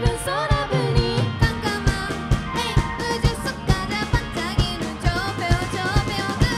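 A live band playing a pop-rock song: a lead singer over a steady drum beat and accompanying instruments.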